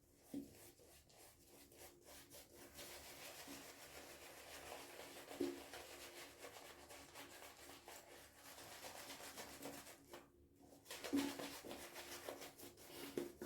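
Silvertip badger shaving brush working soap lather on the face: a faint, wet rubbing and swishing of the bristles, with a short pause about ten seconds in.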